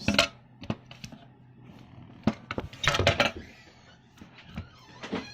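A series of sharp clattering knocks, about six, the loudest right at the start and a cluster about three seconds in, over a faint steady hum.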